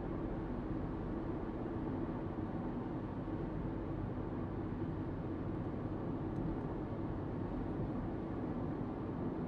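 Steady road noise inside a car cruising on a motorway at about 60 mph: an even, low rumble of tyres and engine that does not change.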